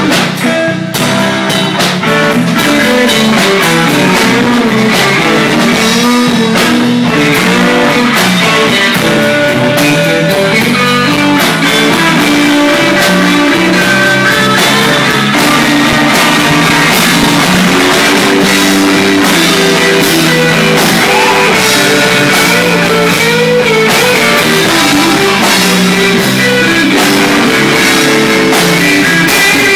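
Live blues-rock band playing a slow blues, with electric guitar lines over bass and drums.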